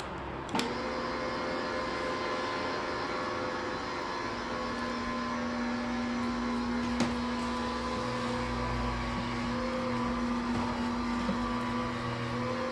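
Hustorm HS-8000 corded dual-spin wet mop switched on with a click about half a second in, its motor then running with a steady hum as the twin mop pads spin. Another click comes about seven seconds in, with some low rumble later on.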